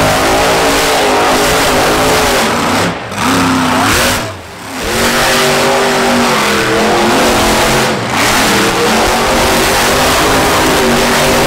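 Monster truck engines revving hard at high rpm as the trucks spin donuts, the pitch rising and falling with the throttle. The engine note drops away briefly about three seconds in and again at about four and a half seconds, then picks back up.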